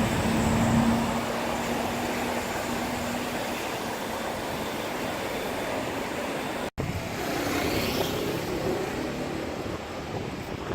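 Steady street traffic noise with a continuous hiss and a vehicle's tone fading away in the first few seconds. The sound drops out for an instant about two-thirds through, and a similar noisy outdoor background carries on after it.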